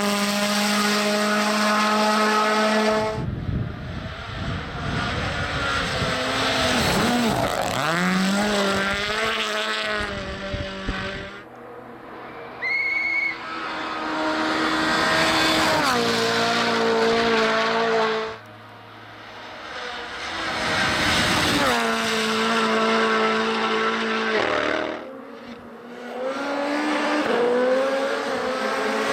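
Several Rally1 rally cars, among them a Hyundai i20 N Rally1, driven flat out past one after another on a snow stage. Their turbocharged four-cylinder engines rev high with gear changes, and the pitch drops as each car goes by.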